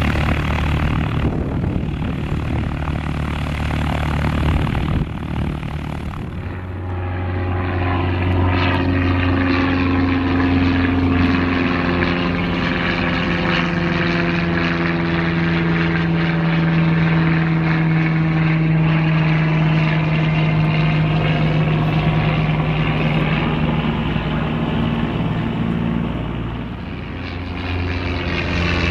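Light single-engine propeller airplane flying low overhead: a steady piston engine and propeller drone. The sound changes abruptly about six seconds in and again near the end.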